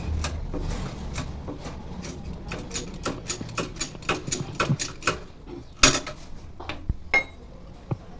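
Irregular metallic clicks and knocks, with one sharp knock about six seconds in, as a new bearing is pressed into an AC compressor pulley, driven by the old bearing set on top of it.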